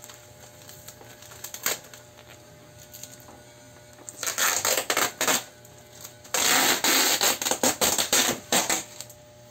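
Parcel packaging being handled and opened: two bursts of crinkling and rustling, a shorter one about four seconds in and a longer one from about six seconds until near the end, with a few single clicks before them.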